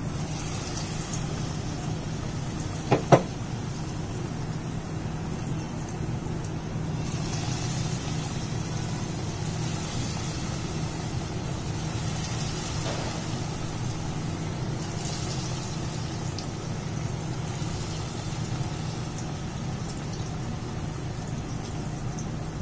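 Batter-coated potato slices deep-frying in hot oil in a kadhai, a sizzling hiss that swells a few times as more slices go in, over a steady low hum. Two sharp knocks about three seconds in.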